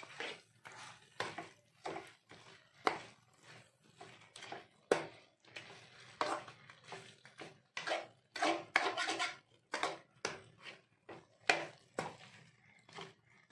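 Metal spatula stirring masala-coated chicken pieces in a metal pot, scraping and knocking against the pot in short, irregular strokes about once a second.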